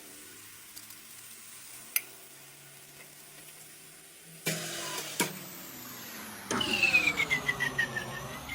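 CNC lathe running: a low steady hum with one sharp click about two seconds in. About halfway through the machine gets louder, and soon after a whine falls and then rises in pitch over rapid, uneven pulsing.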